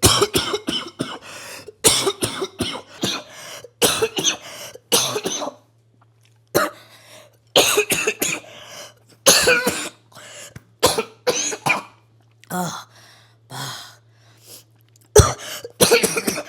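A person coughing hard in repeated fits, several harsh coughs in quick succession per bout with short pauses between bouts. This is a 'tren cough', the coughing fit that can follow an injection of trenbolone.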